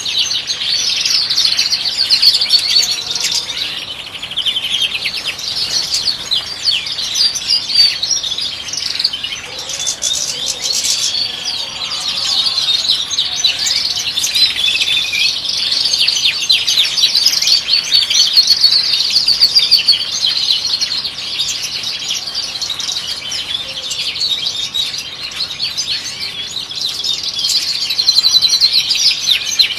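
European goldfinches singing: continuous rapid twittering and trilling.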